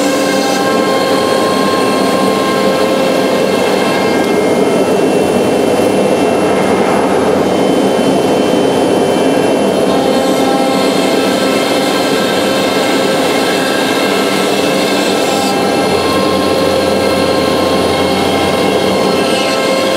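Techno 5x12 CNC router running, its 10 HP spindle and 25 HP vacuum blower giving a loud, steady whine of several tones over a rushing noise as the brush-skirted head moves across the table. The tones shift a little every few seconds as the head changes its motion.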